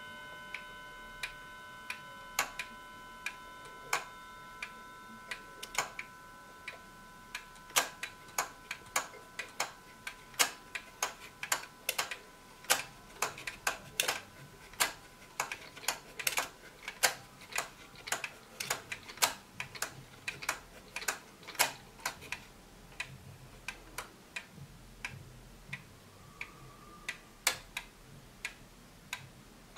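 Hermle mechanical wall clock ticking, with the last of its chime ringing and dying away in the first few seconds. As the minute hand is turned by hand, extra irregular clicks from the movement crowd in among the ticks from about eight seconds in, then thin out again near the end.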